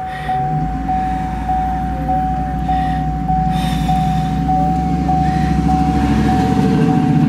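A car's warning chime repeating steadily, about two dings a second. Under it, from about half a second in, a vehicle engine's low rumble builds and grows louder.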